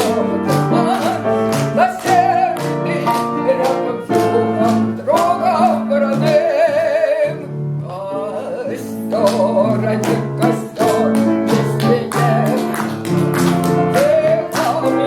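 Operetta song music: a melody with wide vibrato over a rhythmic accompaniment with a steady, quick beat, easing briefly about halfway through.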